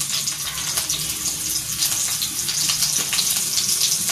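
Chopped green chillies sizzling in hot oil in a frying pan: a steady hiss with scattered crackles and pops.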